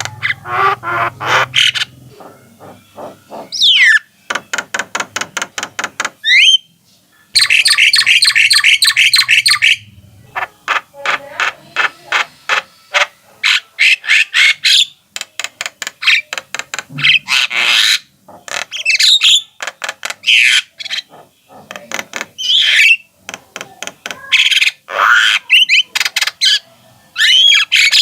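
Javan myna (jalak kebo) in full, continuous song: rapid stuttering trains of harsh clicking notes, broken by short whistled glides that rise or fall and by squawks.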